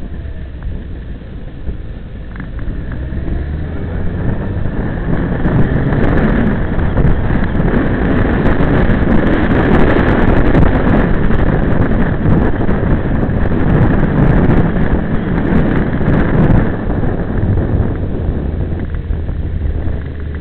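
Wind rushing over the microphone of a camera on a moving motorcycle, over the steady drone of its engine; the rush swells louder through the middle as the bike picks up speed.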